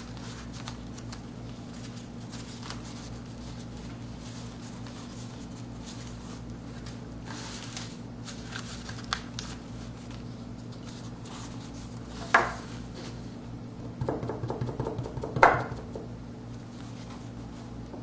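Soft paper rustling as a seal album's pages are handled and smoothed flat, then a single sharp knock of a hard object set down on the table. A quick run of small taps follows, ending in a louder tap, as a soapstone seal is dabbed into red seal paste in a porcelain dish.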